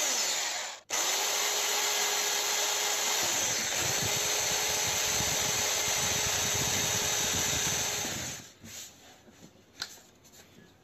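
Electric drill boring a small stop hole at the tip of a crack in a thin ABS motorcycle side cover, so the crack stops spreading. The motor winds down and cuts out just under a second in, starts again at once, runs steadily for about seven seconds and stops, followed by a few faint handling clicks.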